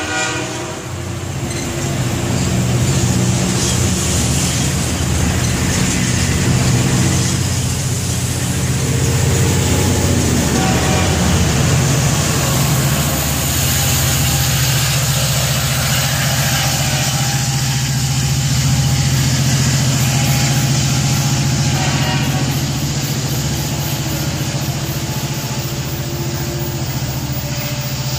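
Metrolink commuter train of bi-level coaches rolling past, with its diesel locomotive at the rear passing about a third of the way in. The locomotive's engine keeps up a steady low drone as the train pulls away.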